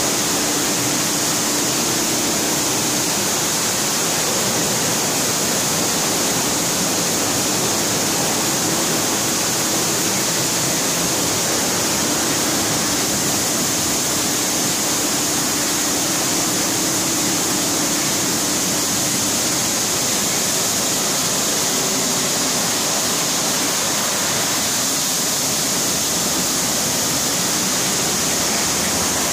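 Tammermatic RoboJet tunnel car wash running: water jets spraying and rotating brushes scrubbing a car, a loud steady hiss of spray. A faint low hum underneath fades out about twenty seconds in.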